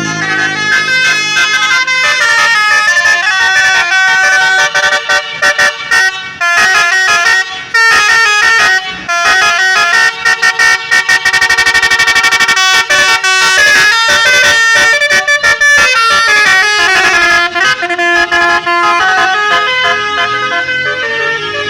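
Telolet horn on a Tunggal Jaya bus: a loud multi-tone musical horn playing a melody of stepped notes. Bursts of rapid, quickly repeated short toots come about a third of the way in and again near the middle.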